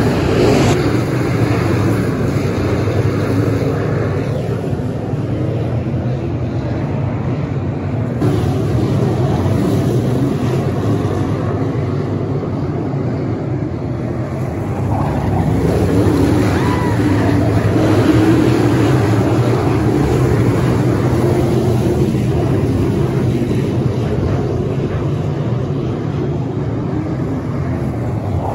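A pack of dirt late model race cars with 604 crate V8 engines running around the track in a steady engine drone that grows louder about halfway through as the cars come by.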